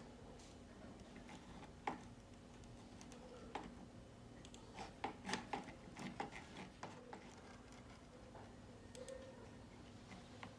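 Faint, scattered small clicks and taps, bunched together about five to six seconds in, over a low steady hum.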